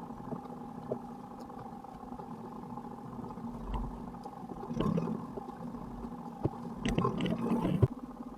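An engine running steadily, with a few knocks and bursts of clatter about five seconds in and again near the end.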